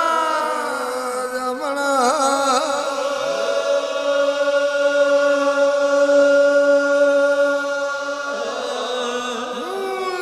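Devotional chanting of the names of Dev Narayan. A voice wavers through a phrase about two seconds in, holds one long steady note through the middle, and moves to a new note near the end.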